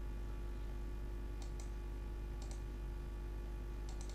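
Computer mouse clicking three times, about a second apart, each click a quick double tick of press and release. A steady electrical hum runs underneath.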